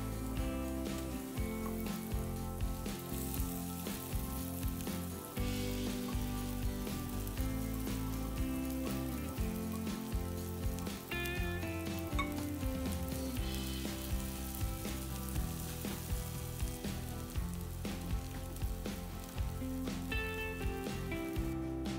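Minced garlic sizzling in hot oil in a nonstick frying pan; partway through, mashed potatoes are tipped in and stirred with a spatula, frying and scraping against the pan. Background music plays throughout.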